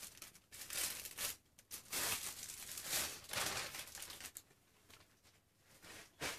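Thin clear plastic packaging bags crinkling and rustling as they are handled and gathered up, in uneven bursts for the first four seconds or so, then fading to quiet.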